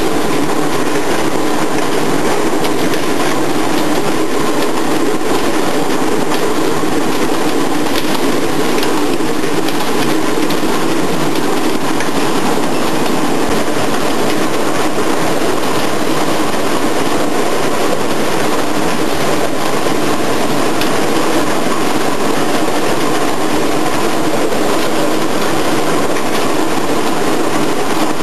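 Steady, loud din of factory machinery running continuously, an even mechanical rumble with no pauses.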